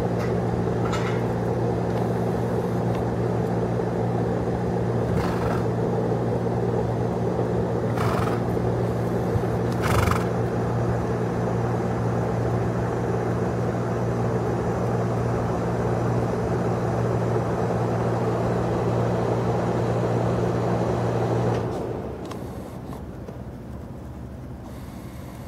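A steady low machine hum with fixed tones, like a running engine, that drops sharply in level about 22 seconds in. A few short knocks come through in the first half.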